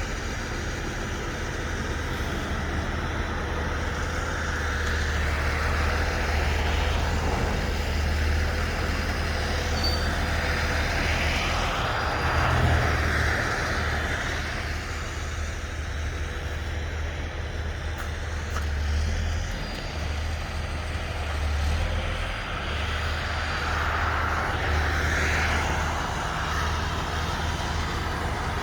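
Heavy rotator wrecker's diesel engine running steadily with a deep rumble, with several swells of hissing noise rising and falling over it.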